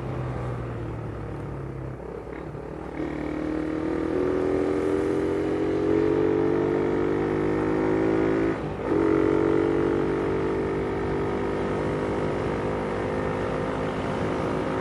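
Motorcycle engine under way: from about three seconds in its pitch climbs slowly as the bike accelerates, breaks briefly for a gear change just past the middle, then holds steady at cruising speed.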